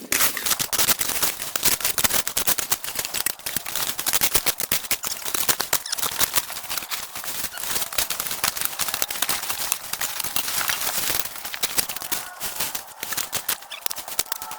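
Dense, rapid crackling and snapping with rustling, like dry brush and vegetation being cleared by hand.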